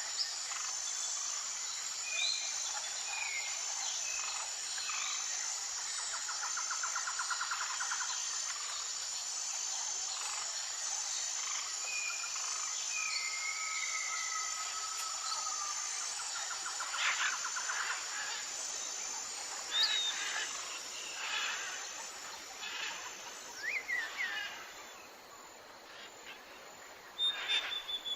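Forest ambience: various birds calling and trilling with short chirps and slurred whistles, over a steady high-pitched insect drone that fades out about 25 seconds in.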